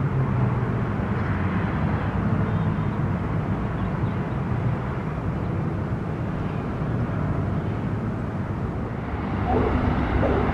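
Steady low rumble with a faint engine-like hum, of the kind a motor vehicle makes.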